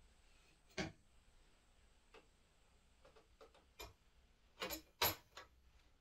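Irregular faint clicks and knocks of hands adjusting a studio video camera and its teleprompter rig, with a cluster of louder ones toward the end.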